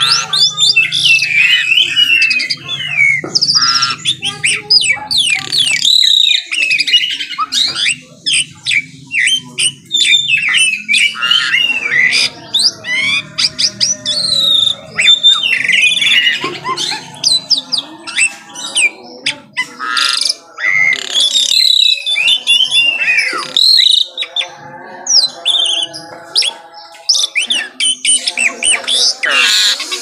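White-rumped shama singing a long, varied song of loud whistles, rapid note runs and sweeping glides, with only short pauses between phrases.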